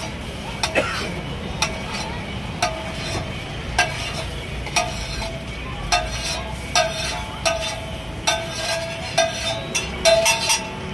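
Metal spatula scraping across a large flat steel griddle (tawa), gathering up scrambled egg. The strokes come about once a second and quicken near the end, each leaving a short metallic ring from the griddle.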